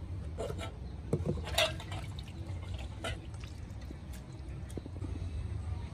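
Water splashing and dribbling, with a few short knocks and clinks, the loudest about a second and a half in, over a low steady hum.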